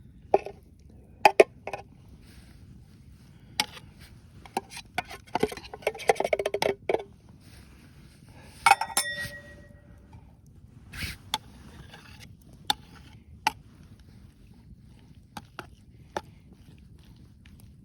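Metal camp cookware clinking and scraping: a utensil knocking and scraping against a metal pot, with one ringing clink about nine seconds in.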